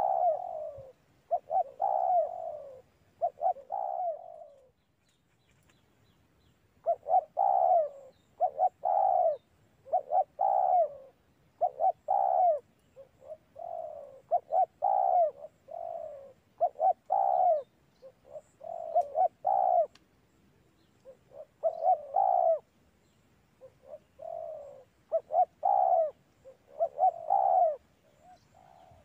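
Spotted dove (tekukur) cooing in repeated phrases of short notes that each rise and fall in pitch. There is a pause of about two seconds, about five seconds in, and then the phrases resume.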